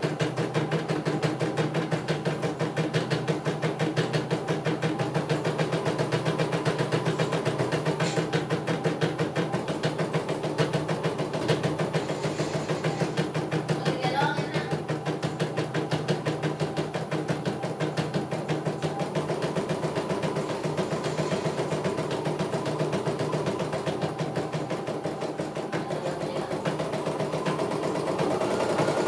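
CNY E900 portable computerized embroidery machine stitching a design: a rapid, even rhythm of needle strokes with the machine's motor running underneath. It grows slightly louder near the end.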